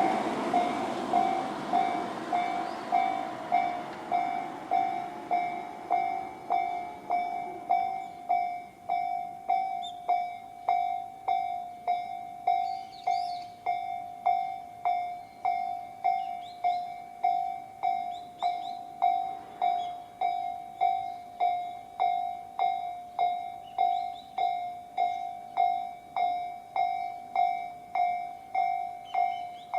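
Japanese railway level-crossing warning bells, the slow-tempo Tobu 'sound C' type, ringing on both sides of the crossing. They give a steady, evenly paced ding about three times every two seconds. A rushing noise fades out over the first several seconds.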